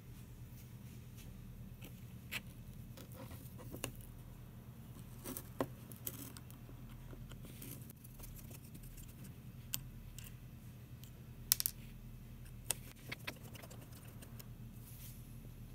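Scattered small clicks and taps as a screwdriver works the screws out of a plastic webcam base, with a short cluster of clicks about two thirds of the way through, over a steady low hum.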